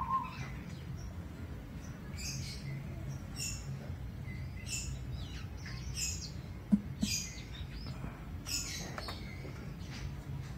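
Small birds chirping over and over over a low steady rumble, with one sharp click about seven seconds in.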